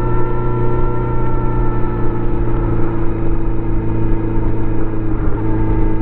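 Stock 2018 Kawasaki Z900RS inline-four engine and exhaust running at a steady engine speed while the motorcycle is ridden, heard from on the bike.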